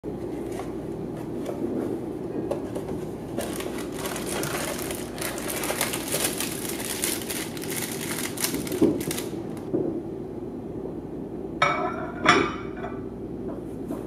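Plastic sandwich wrapper crinkling and rustling in the hand for several seconds, then two sharp clinks with a brief ring as a ceramic plate is set down on the glass microwave turntable.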